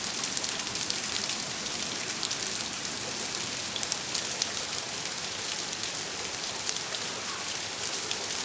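Steady rain falling, an even hiss with scattered sharper ticks of drops hitting.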